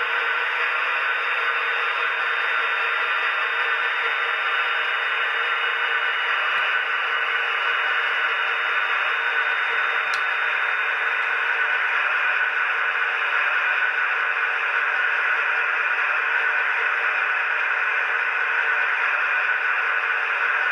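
Sound-fitted OO-scale Class 68 model diesel locomotive running its DCC sound through its small onboard speaker: a steady, hissy engine sound with no bass. A thin, steady high-pitched whine runs alongside it.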